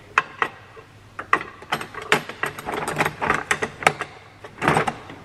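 Metal hand tools being handled, most likely Allen keys from a new Snap-on set being worked in and out of their holder: irregular sharp metal clicks and rattles.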